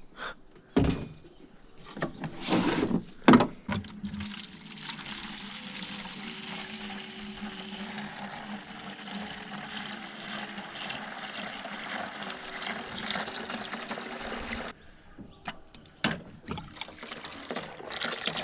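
Water running steadily into a container for about eleven seconds, then cut off suddenly. A few knocks come before and after it.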